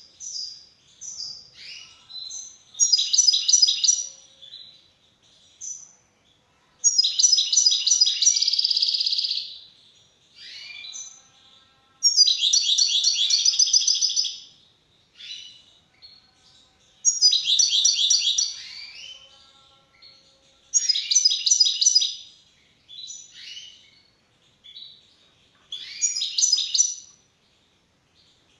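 A caged European goldfinch singing: fast trilled song phrases recurring about every four to five seconds, with short chirping notes between them.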